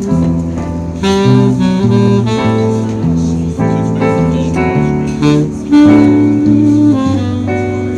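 Small swing jazz band playing live, the saxophone leading over electric piano, acoustic guitar and bass, with one long note held near six seconds in.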